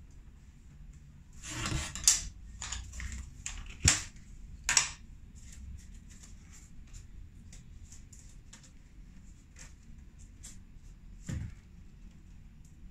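Small objects being handled and set down on a desk: a brief rustle, then a few sharp clicks and knocks between about two and five seconds in, and one more knock near eleven seconds.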